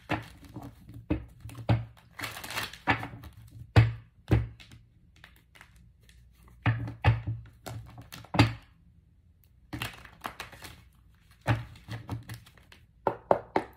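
Tarot cards being handled on a table: irregular sharp taps and thunks in small clusters, with a short pause a little past the middle.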